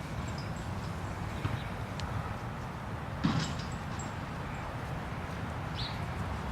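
Outdoor background with a steady low rumble, like wind on the microphone, a few faint high chirps, and a brief knock or thump about three seconds in.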